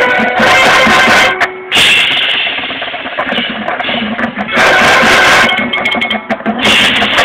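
Marching band playing a field-show piece with drums. Loud full-band passages are broken by a brief pause about a second and a half in, and a softer stretch follows before the band comes back in loudly.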